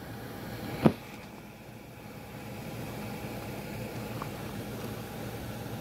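Steady low engine rumble, with one sharp knock about a second in.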